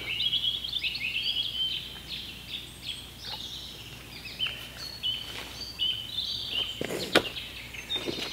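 Songbirds singing in the trees, many quick high chirps and warbling phrases overlapping. A few sharp knocks come about seven seconds in, from the angler handling his landing net and gear.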